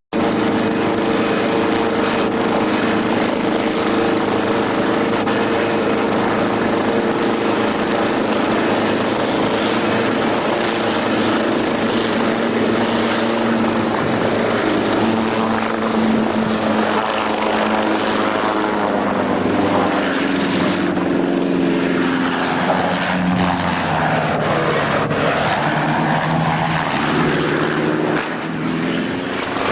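Helicopter engine and rotor running loudly, steady at first, then its pitch wavering up and down through the second half and dropping off near the end.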